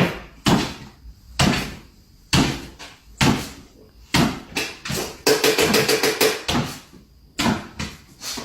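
A series of loud knocks or bangs, roughly one a second, with a fast rattling run of strikes a little past the middle.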